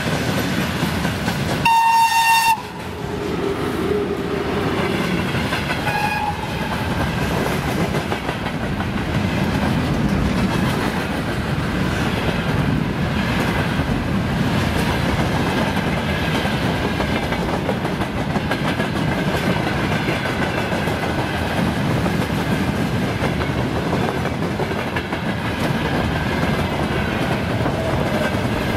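Electric locomotive horn gives one short, loud blast about two seconds in, with fainter horn notes a few seconds later. Underneath, the steady rumble and clickety-clack of a long freight train's wagons rolling past close by.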